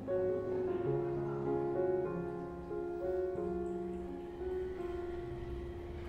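Background instrumental music: a piano melody of changing notes over a held low accompaniment.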